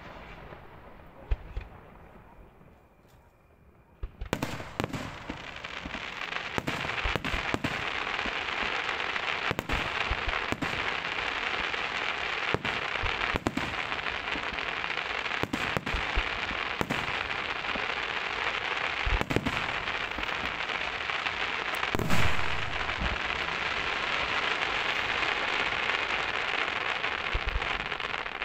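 Aerial fireworks display. After a few quieter seconds, a dense, continuous crackling sets in about four seconds in, cut through by many sharp bangs, with one louder boom a little past the twenty-second mark.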